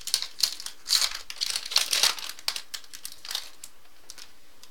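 A trading card pack's wrapper being torn open and crinkled by hand: a run of irregular crackling rustles that dies down about three and a half seconds in.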